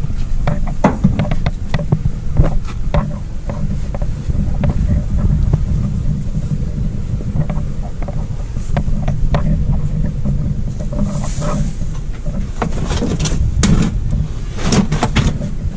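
Wind buffeting the microphone, a loud low rumble that runs on without a break, with scattered clicks and knocks, more of them near the end.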